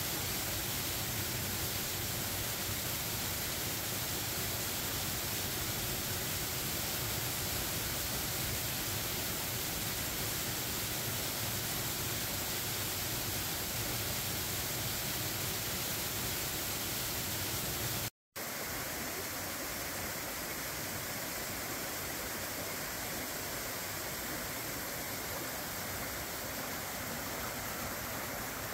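Double-drop waterfall rushing: a steady roar of falling water. It drops out for a split second about two-thirds through, then carries on slightly thinner.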